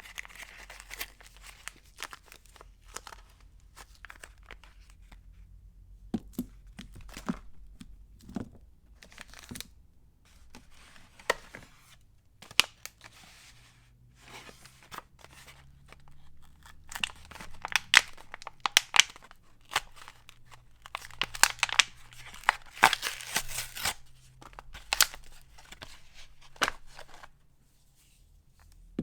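Soap wrappers being torn open and crinkled by hand, in irregular bursts of tearing, rustling and crackling that grow busiest past the middle.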